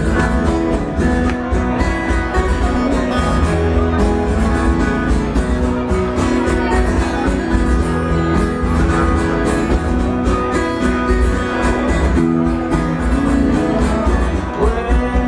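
Instrumental break of a live acoustic rock song: guitar chords strummed in a steady rhythm over a full low end, with no singing.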